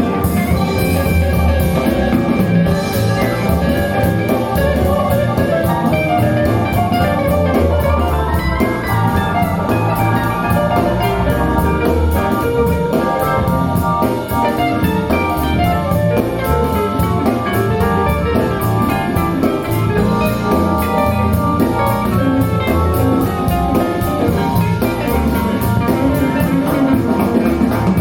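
Instrumental music with a drum kit and melodic instruments, played back through a pair of Wharfedale Linton Heritage loudspeakers in a furnished living room for a sound demo.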